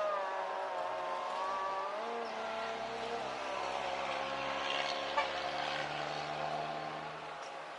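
Motor vehicle engines passing on a road, their pitch gliding up and down, with a short click about five seconds in.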